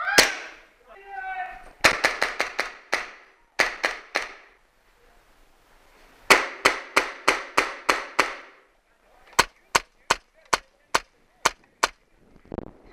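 Airsoft guns firing strings of sharp single shots in quick succession: a rapid volley, a short burst of three, another long volley, then slower, evenly spaced shots.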